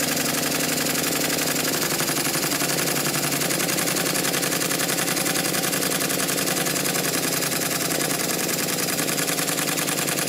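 Stuart triple expansion model steam engine running steadily on compressed air, giving a fast, even run of exhaust beats. The water pump and vacuum pump are disconnected, so only the engine itself is heard.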